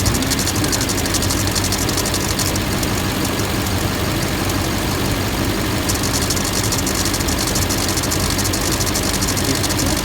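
Duramax LMM 6.6-litre V8 turbodiesel idling with a rapid clicking over the engine note. The clicking eases off for a few seconds in the middle and comes back. It sounds like a bearing, but it was traced to a worn serpentine belt after every pulley and the A/C clutch had been replaced.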